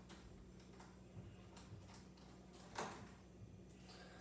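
Near silence with a few faint clicks, the clearest just under three seconds in: a small Phillips screwdriver and loose screws being handled on a Chromebook's underside.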